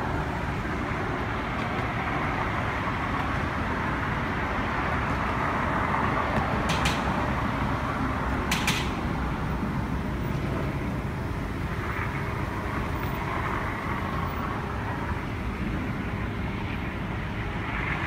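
Steady outdoor background noise of distant road traffic, a continuous low rumble and hiss with a faint steady hum, broken by two short high-pitched ticks about seven and eight and a half seconds in.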